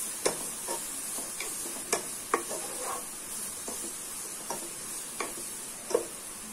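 Chopped onions sizzling in hot oil in a non-stick pan as they are stirred with a wooden spatula. The spatula knocks and scrapes against the pan about ten times at irregular intervals over a steady frying hiss.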